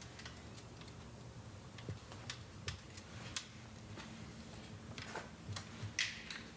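Faint, irregular light clicks and taps from bike parts and cable housing being handled during assembly, over a low steady hum.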